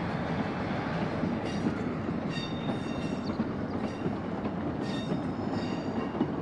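A passenger train running along the line: a steady rumble of wheels on rails, with a few brief high-pitched squeals from the wheels.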